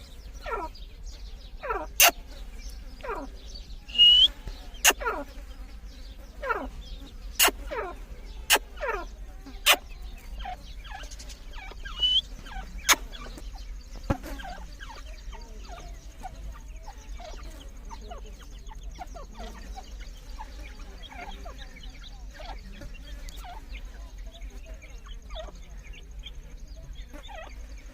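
Teetar (partridges) calling: a busy run of quick, downward-sliding notes, fainter and sparser in the second half. Several sharp clicks stand out among the calls.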